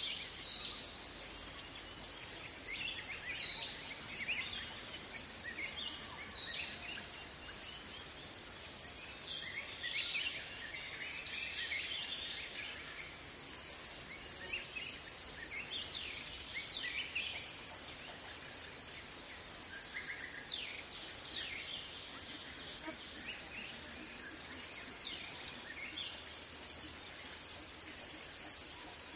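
Forest ambience: a steady, shrill insect drone in several high bands, with scattered short bird chirps and calls throughout.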